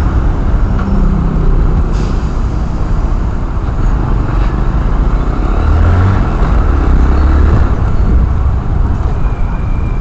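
Motorcycle riding in city traffic, picked up by a helmet camera: engines of the bike and nearby vehicles over a loud, steady low rumble.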